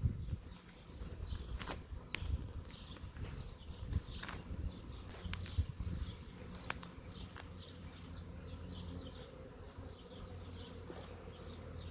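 Swarm of honey bees buzzing steadily around and into a packed 5-frame nuc box as they settle in with their queen. A few sharp clicks sound in the first half.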